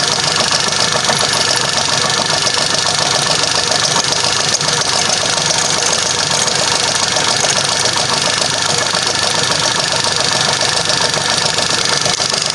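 Atlas lathe running steadily while a twist drill fed from the tailstock bores into a stainless steel bar held in a collet.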